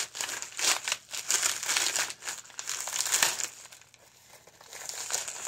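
Plastic poly mailer bag crinkling and crackling in irregular bursts as hands work it open, with a short lull about four seconds in.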